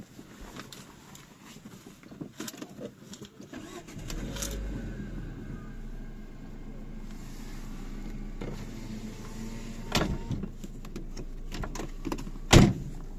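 A motor vehicle's engine starts about four seconds in and then runs steadily at idle. Two sharp knocks come near the end, the second one louder.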